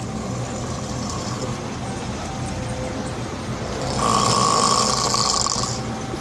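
A man snoring: one long, louder snore about four seconds in, over a steady low background rumble.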